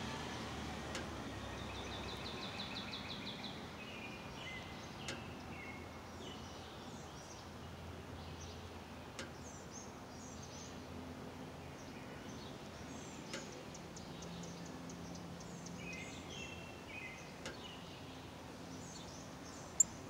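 Outdoor ambience of wild birds singing and chirping over a steady background hiss, with a quick trill about two seconds in and scattered high chirps later. A few faint ticks, and one sharp click near the end.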